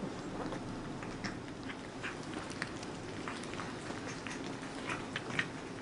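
Cats eating turkey meat: quick, irregular wet smacking and chewing clicks.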